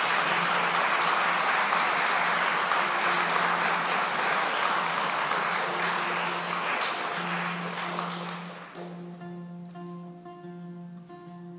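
Audience applause that dies away about eight seconds in, while a five-course baroque guitar starts playing; its plucked notes come through clearly once the clapping has stopped.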